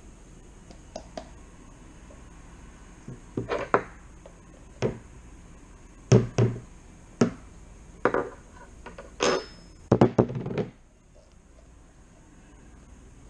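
A run of sharp knocks and clatter, about a dozen, as a plastic glue bottle is handled, opened and knocked against a plastic mixing bowl. The knocks come in irregular clusters and stop about eleven seconds in.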